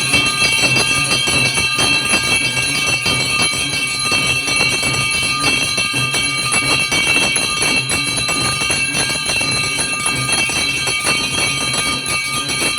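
Loud temple festival music: dense jingling percussion over steady high ringing tones.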